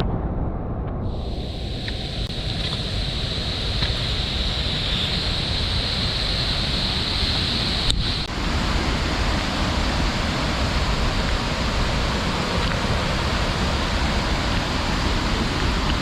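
Steady rushing noise of fast-flowing river water and a waterfall, with a steady high whine in the first half that stops at a brief click about eight seconds in.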